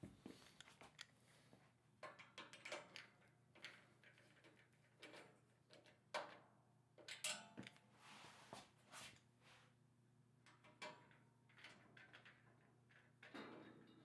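Faint scattered clicks, knocks and scrapes of hands working mounting hardware on a metal server rack's rail, the loudest knock about seven seconds in, over a low steady hum.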